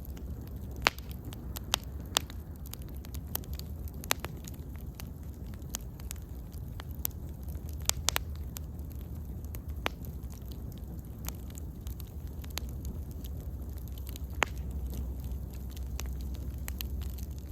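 Wood bonfire crackling: sharp, irregular pops and snaps over a steady low rumble of burning, the loudest pop about a second in.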